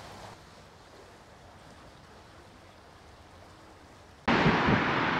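Shallow brook water flowing faintly and steadily through a concrete channel. About four seconds in, a much louder, even rushing noise cuts in abruptly.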